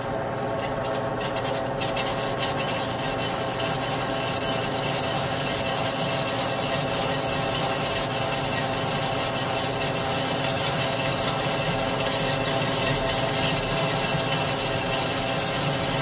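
Metal lathe running steadily with a Top Fuel funny car clutch part spinning in its chuck, the turning tool taking a light skim pass across the friction surface: an even machine hum with many steady tones and a rubbing, scraping cut that sounds pretty good.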